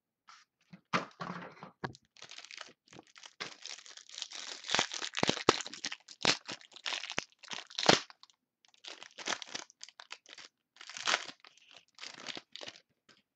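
A sealed box of trading cards being opened: plastic wrapping tearing and crinkling in irregular handfuls, with a few sharper snaps partway through, the loudest near the end of the middle.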